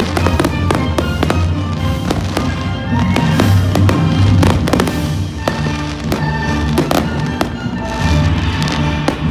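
A fireworks display with many shells bursting in quick, overlapping succession, bangs and crackle layered over a continuous low rumble, with music playing over loudspeakers underneath.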